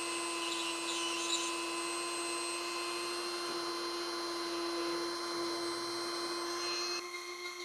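Dremel rotary tool spinning a piece of 2.85 mm 3D printer filament against a plastic 3D-printed part, friction-welding a bead along the seam: a steady high whine, easing slightly about seven seconds in.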